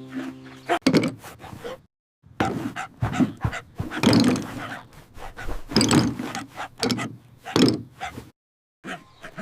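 A series of knocks and thumps, with short silent gaps between groups, after a music cue stops about a second in.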